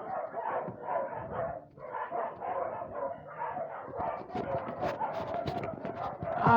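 Dogs barking and yapping in a continuous, overlapping chorus.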